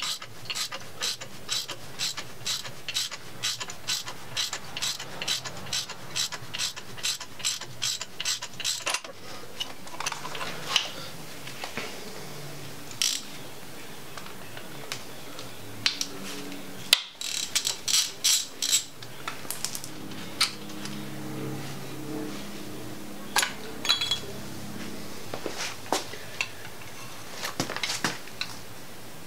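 Socket ratchet clicking steadily, about three clicks a second, as it turns the forcing screw of a bearing-separator puller drawing the timing sprocket off the LM7 5.3L crankshaft. Later there are a few scattered metal clicks and one more short, quick run of ratchet clicks.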